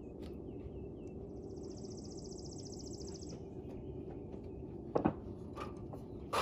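Outdoor ambience: steady low background noise with small bird chirps and a high, rapid trill lasting about two seconds. Near the end come two sharp knocks, the first doubled, which are the loudest sounds.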